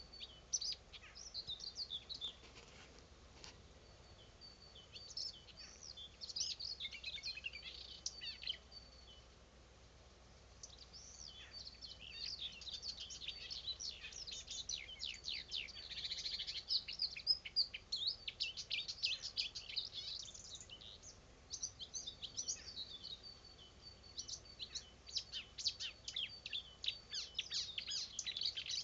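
Nightingale singing: phrases of fast rattling, repeated notes alternate with long, high, even whistles, with a short pause in the song about a third of the way in.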